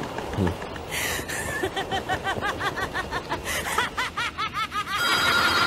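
A cartoon villain's laugh: a low chuckle climbs into a rapid, high-pitched cackle of rising-and-falling 'ha's, about four a second, ending in a long held high shriek near the end.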